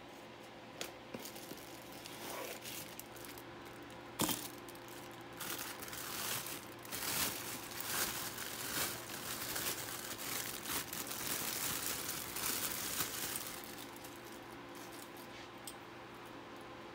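Plastic and cardboard packaging crinkling and rustling as a CPU cooler's parts are unpacked from their box, with a sharp click about four seconds in; the crinkling is densest in the middle and dies down near the end.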